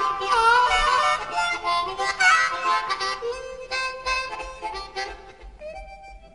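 Instrumental background music with a lead melody of bending, held notes, getting quieter toward the end.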